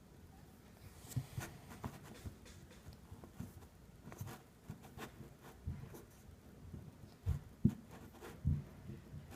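Hands patting, pressing and scraping kinetic sand into a mound: soft, irregular pats and light scratchy handling, with a few louder thumps near the end.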